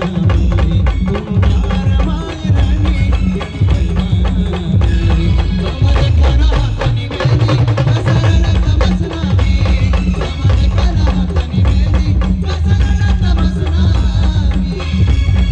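Brass band playing an instrumental passage, with heavy drums pounding under a wavering melody line.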